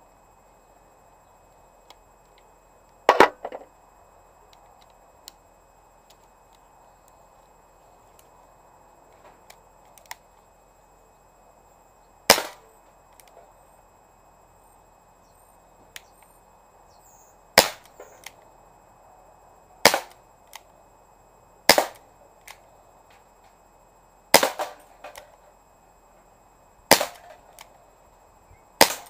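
Umarex Smith & Wesson 586 CO2 air revolver firing single shots: about eight sharp pops several seconds apart, some with a lighter tick just after.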